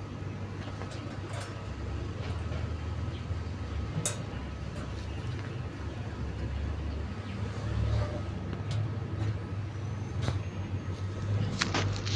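Fan running with a steady low hum and a faint high whine, with scattered clicks and knocks; a cluster of louder clicks comes near the end. The fan is making strange noises.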